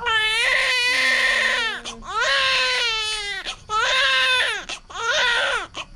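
Newborn baby crying in four long wails with short gasps between, the first the longest. It is taken for a hungry cry.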